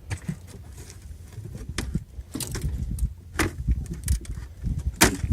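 Scattered clicks, knocks and rattles of gear being handled aboard a small fishing boat, over a steady low rumble.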